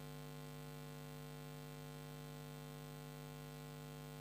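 Faint, steady electrical mains hum in the recording, a low buzz that does not change.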